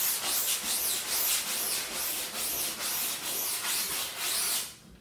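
A screen-printing mesh, wet with photo emulsion remover, rubbed lightly back and forth to spread the liquid over it. It makes a rhythmic swishing hiss at about three strokes a second, which stops shortly before the end.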